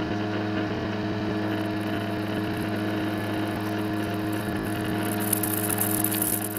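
Steady mechanical drone made from a field recording of a car park elevator: a low hum with several held tones under a hiss. The high hiss grows brighter about five seconds in.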